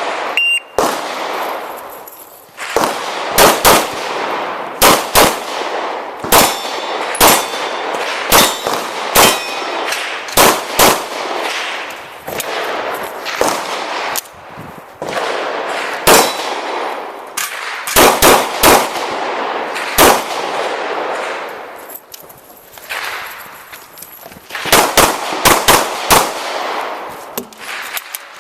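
A shot timer's short beep, then a shooter firing a pistol in quick pairs and strings of shots through a course of fire, with steel targets clanging and ringing when hit.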